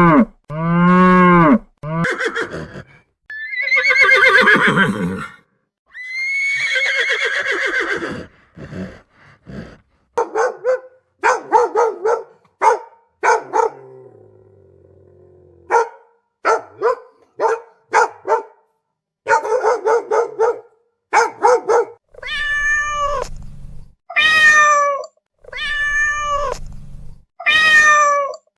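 A string of real animal calls, one after another: a cow mooing at the start, other animal calls in the middle, and a cat meowing about five times near the end.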